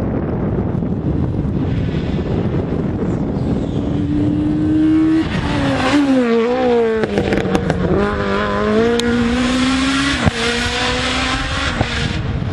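Rally car engine at full throttle as the car comes up and drives past. Its note climbs, then drops sharply about five seconds in and again about ten seconds in, and it is loudest as the car goes by.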